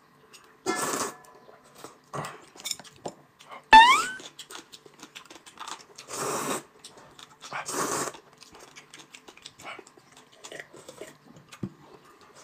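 Noodles being slurped from a bowl in several short bursts, with chewing between. About four seconds in, a short rising whistle-like tone sounds over one of the slurps.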